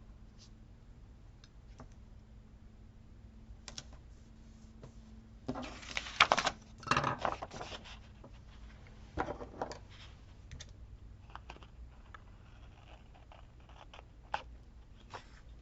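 Paper and sticker sheets being handled at close range: scattered small taps and clicks, with a louder stretch of crinkling rustle about six to eight seconds in and a shorter one near nine seconds.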